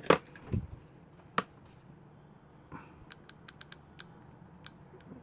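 Light clicks and taps of small plastic parts being handled and fitted together, with a sharper click at the start and another about a second and a half in, then a quick run of small clicks near the end.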